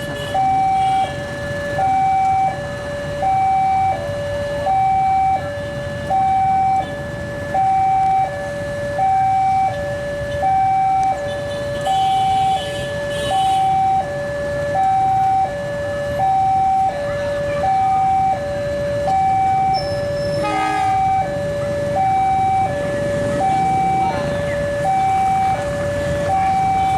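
Railway level-crossing warning alarm sounding continuously, an electronic two-tone signal swapping between a higher and a lower note about every three-quarters of a second, with steady low traffic rumble beneath.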